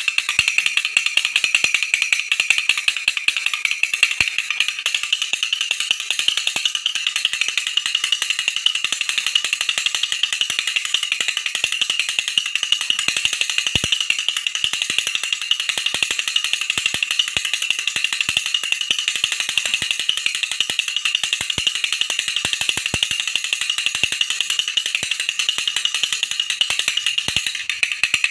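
Baby rattle shaken without pause: a steady, dense run of rapid, bright clicking.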